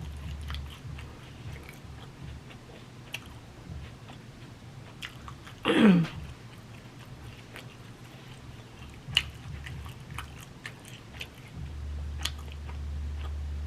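Close-up mouth sounds of chewing a mouthful of steak, chicken, rice and beans, with scattered wet clicks and smacks. About halfway through comes a short "mm" hum that falls in pitch.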